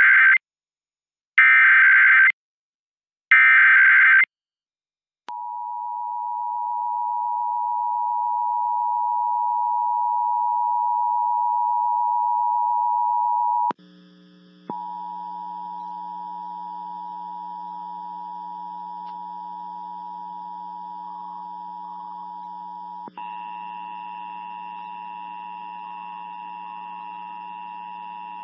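Emergency Alert System test signal: three short bursts of screeching SAME header data tones, then the steady two-tone EAS attention signal. The attention signal drops out briefly about 13 seconds in and returns quieter over a low hum.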